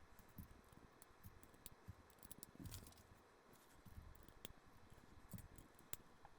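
Faint, irregular clicks and light rattling of LEGO bricks being handled and pressed together during a build, with a few sharper snaps.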